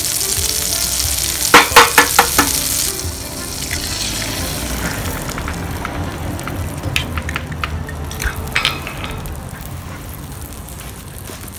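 Butter sizzling in a small stainless steel pan over a wood fire. About a second and a half in, an egg goes into the hot butter with a burst of sharp crackles. The sizzle then settles to quieter, steady frying with occasional pops.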